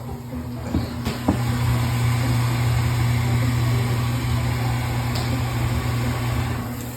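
Kitchen garbage disposal switched on about a second in with a click, then running with a steady electric-motor hum, with tap water running through it.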